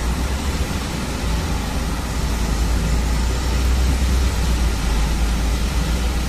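Steady low rumble under an even hiss: ambient vehicle and engine noise outdoors, with no single event standing out.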